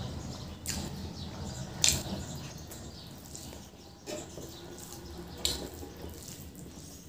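Close-up wet chewing of a mouthful of fried fatty pork and rice, with four sharp wet smacks of the lips, the loudest about two seconds in.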